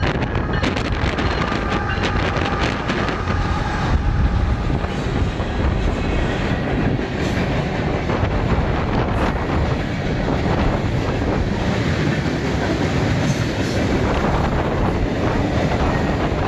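CN freight train passing close by. Its diesel locomotives go by in the first few seconds, then a long string of tank cars and other freight cars rolls past with a steady rumble and wheel clatter over the rail joints.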